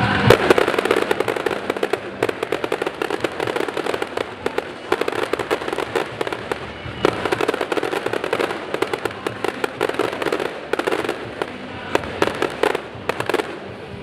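Fireworks display: a dense, irregular run of sharp cracks and pops from bursting aerial shells and crackling stars, the loudest crack near the start.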